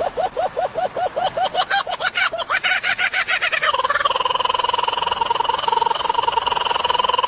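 A bird calling: a rapid run of repeated notes, about five a second, that gives way about halfway through to one long, steady held note.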